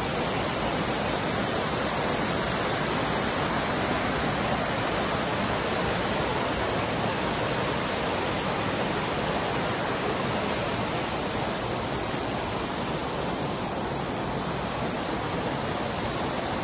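Rushing water of a mountain stream cascading through a rocky gorge: a steady, even rush of noise.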